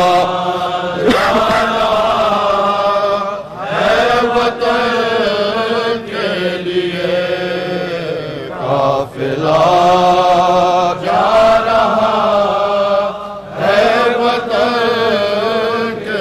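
Male voices chanting an Urdu noha (Muharram lament) without instruments, in long drawn-out melodic phrases over a steady low drone.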